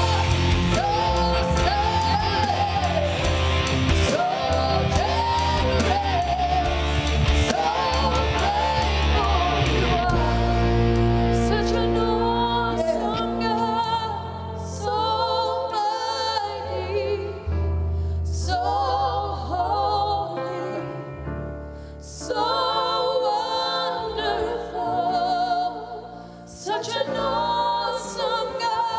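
Gospel song: a singer with instrumental backing. The full backing with its heavy low end and cymbal wash drops away about twelve seconds in, leaving the voice over lighter accompaniment.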